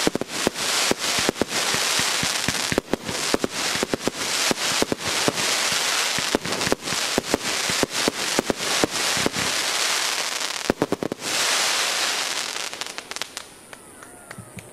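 Aerial fireworks bursting: a dense, continuous crackle of many sharp pops with a cluster of louder cracks about two-thirds of the way through, dying away over the last two seconds.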